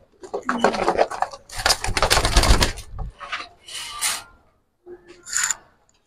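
A racing pigeon being grabbed by hand inside a wire cage: scraping, rustling and wing-fluttering against the cage wire in several bursts, loudest a second or two in, then fainter scuffles.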